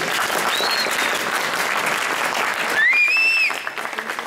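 Crowd applauding. A short high whistle sounds within the first second, and a louder whistle slides upward about three seconds in.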